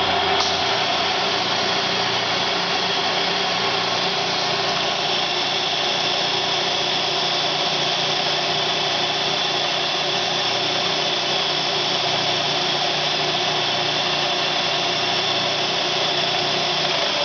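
Hurco three-axis CNC milling machine running a circular-pocket program with its spindle turning and the mist coolant blowing. It makes a steady hiss with a constant whine running through it. The cutter is only cutting air, so there is no chip or cutting noise.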